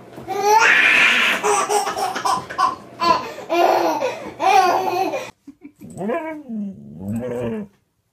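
A baby belly-laughing in repeated bursts for about five seconds. After a sudden cut, a husky gives two drawn-out vocal calls that rise and fall in pitch.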